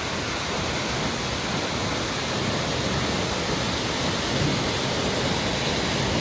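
Waterfall: water falling in a loud, steady rush.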